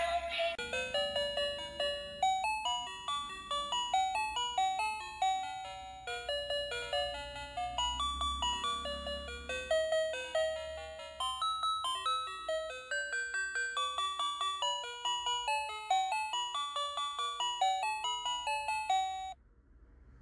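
Electronic tune from a battery-operated light-up toy's sound chip: a quick melody of single beeping notes, stopping abruptly near the end.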